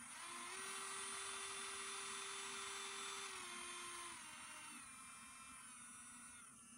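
AZ GOGO portable electric nail drill's handpiece motor spinning with a steady high whine. Its speed drops in steps from about three seconds in, and again near the end.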